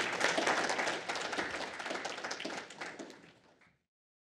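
Audience applauding, a dense patter of many hands clapping that dies down and is cut off abruptly near the end.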